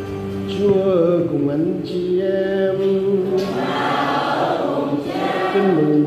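Church choir singing a slow sacred chant with long held notes.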